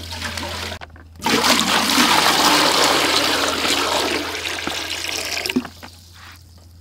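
Water poured in a steady stream into a large metal stock pot that already holds some water, starting about a second in and tailing off near the end.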